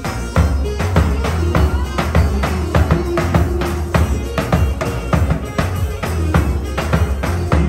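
Balkan folk band playing an instrumental passage live, driven by a tapan, a large double-headed drum beaten with a run of strong, closely spaced strokes over keyboard.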